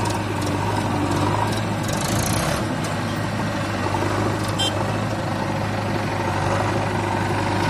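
Diesel engines of a Mahindra 575 DI tractor and a JCB 3DX backhoe loader running steadily at idle: an even low hum with no revving.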